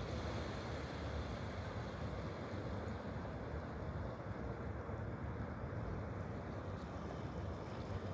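Steady rushing of running water, an even noise heavy in the low and middle range.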